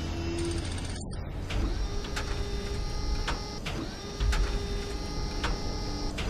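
A steady mechanical whirring with sharp clicks about twice a second, over a low rumble.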